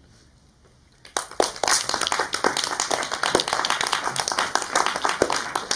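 Audience applauding. It starts about a second in, after a short pause, and dies away near the end.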